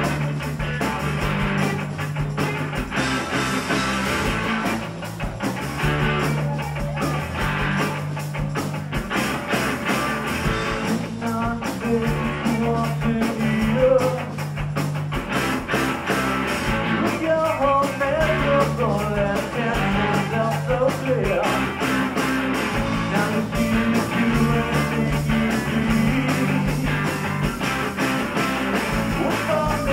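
Rock band playing live on electric guitars, bass guitar and drums, with a steady beat.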